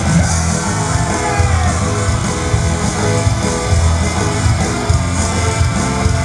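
Rock song playing, with guitar over a steady beat.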